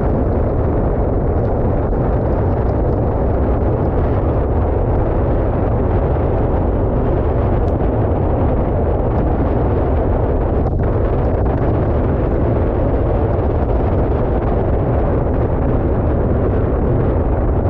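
Wind buffeting the camera microphone while cycling: a loud, steady rumble that does not let up.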